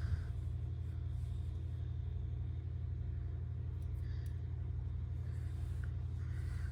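Domestic cat purring steadily, a low rapid pulsing rumble.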